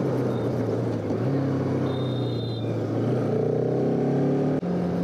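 Bajaj Pulsar RS200's liquid-cooled single-cylinder engine running at steady cruising revs, heard from the rider's seat. Near the end the note breaks for an instant and picks up again at a higher pitch, as with a downshift.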